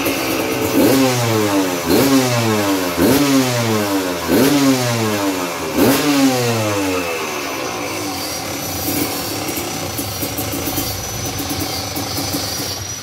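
Kawasaki KDX200's single-cylinder two-stroke engine, breathing through a newly built under-belly racing exhaust, revved in about five quick throttle blips, each climbing sharply and dropping back, then settling to an idle for the second half. This is a test run of the freshly made exhaust.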